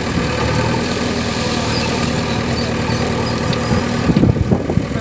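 Heavy diesel engine of a backhoe loader or dump truck running steadily, with a run of irregular low thumps in the last second or so.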